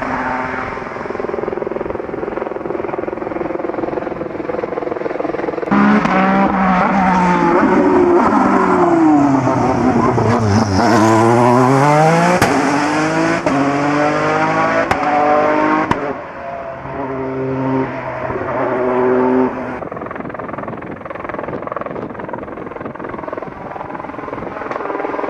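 Peugeot 208 T16 Pikes Peak race car's twin-turbo V6 engine at full racing pace, revving up through the gears. Near the middle the pitch drops as it slows for a bend and then climbs again as it accelerates hard out of it, loudest as it passes close by.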